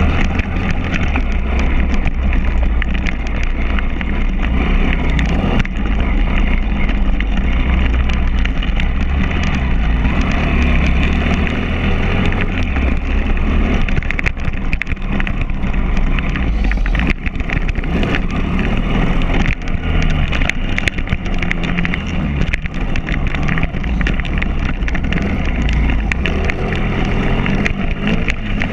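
Pit bike's small single-cylinder four-stroke engine revving up and down as it is ridden over a rough dirt track, with heavy wind rumble on the microphone and repeated knocks from the bumps.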